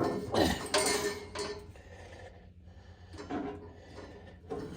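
Metal tools and parts clinking and clanking as they are handled and set down, a cluster of sharp knocks with brief ringing in the first second and a few more later.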